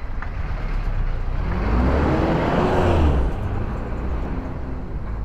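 A motor vehicle passing close by, its engine noise swelling to a peak about two to three seconds in as the engine pitch rises and falls, then fading.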